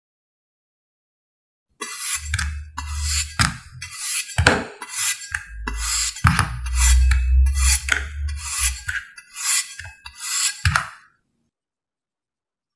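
A knife slicing through sand packed in a wooden mould: a run of crisp, crunchy cutting strokes, roughly two a second, starting about two seconds in and stopping near the end, over a low rumble that comes and goes.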